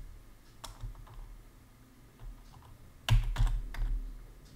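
Typing on a computer keyboard: a single keystroke under a second in, then a short run of several keystrokes about three seconds in.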